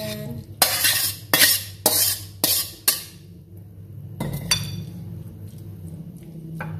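Spatula scraping stir-fried greens out of a metal wok, five quick scrapes about half a second apart. About four and a half seconds in, a metallic clank with a short ring as the wok is set back down on the gas stove.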